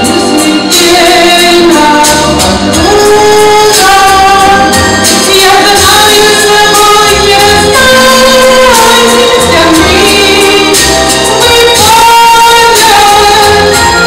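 A woman singing a slow song into a microphone over instrumental accompaniment, holding long notes.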